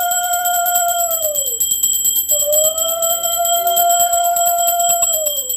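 A conch shell (shankha) blown in two long steady blasts, each about three seconds and dropping in pitch as it dies away, with a puja hand bell ringing fast and steadily underneath.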